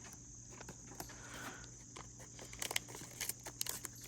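Small spring-loaded scissors of a keychain multitool snipping through a paper receipt: a few scattered clicks, then a quick run of snips in the second half, with faint paper rustling.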